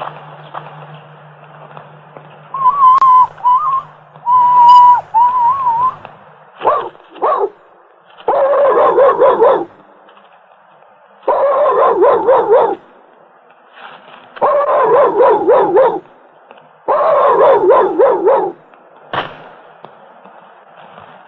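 A dog whining, then giving four long quavering howls, each about a second and a half, over a low steady hum at first.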